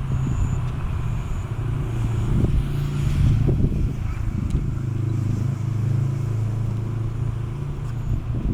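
A vehicle engine running with a steady low drone, its pitch shifting slightly a few times.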